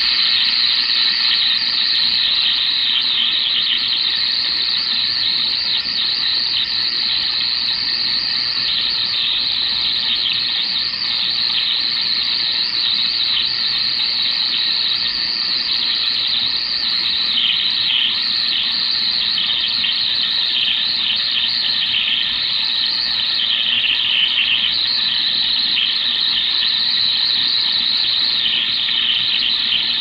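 Radio noise from a Stryker 10-meter transceiver's speaker: a steady, high-pitched squealing hiss that wavers throughout. It is an odd signal drifting across the 11-meter band, the kind most people would class as atmospheric noise.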